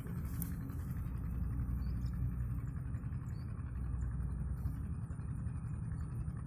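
Low, steady rumble of road traffic, with faint engine hum in it.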